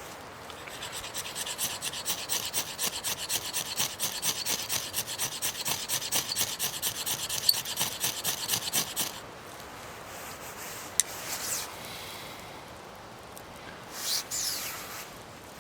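Knife blade scraping and shaving wood in quick, even strokes, about five a second, for around eight seconds. Then a single sharp click and a short scrape near the end.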